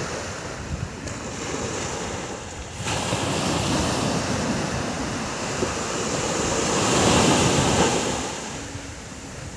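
Sea surf washing onto a sandy beach, a steady rush that grows louder about three seconds in, peaks around seven seconds, then eases off, with some wind on the microphone.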